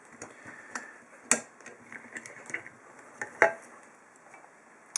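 Light metallic clicks and knocks as a brass padlock and lock-picking tools are handled and set down, with two louder knocks about a second in and past the middle.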